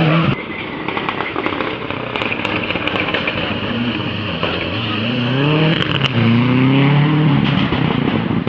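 Rally car at full throttle, its engine note cut off just after the start by a dense rushing, crackling noise as it goes through the water splash. About halfway through the engine comes back up, revving through two rising gear pulls as the car accelerates away.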